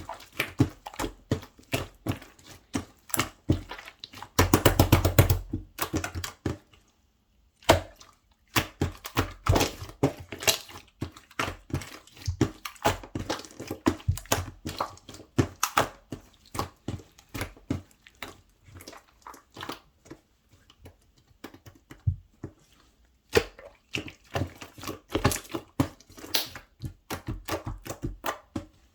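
Slime being squeezed and poked by hand, giving a quick run of sticky clicks and pops. A louder, denser stretch of crackling comes about four to six seconds in, then a short pause.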